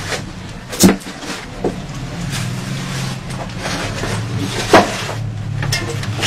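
Objects being smashed and thrown down as a shrine is wrecked: two loud, sharp knocks, about a second in and just before five seconds, with smaller knocks between, over a steady low rumble.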